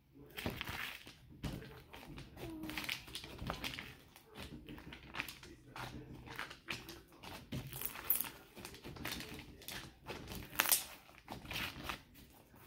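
Hands kneading and pulling slime through instant snow powder: irregular crinkly crunching and squishing, several crackles a second, loudest about two thirds of the way in.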